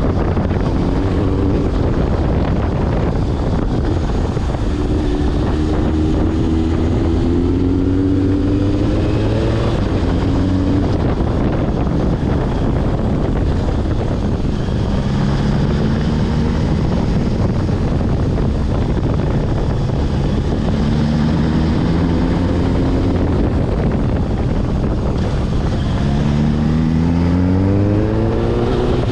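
Suzuki GSX1100S Katana's inline-four engine running under way, its revs climbing and falling with the throttle and rising steeply near the end, with heavy wind noise on the helmet microphone.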